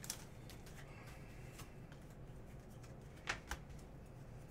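Faint handling of a stack of trading cards, with two quick, sharp clicks of card edges a little past three seconds in.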